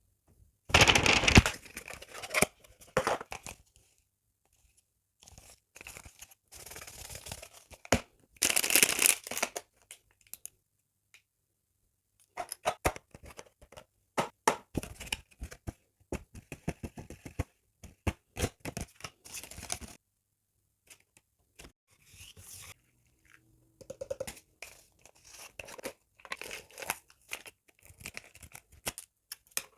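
Packaging being torn open and handled: a longer tearing sound about a second in and another near nine seconds, with scattered rustling, crinkling and small clicks in between.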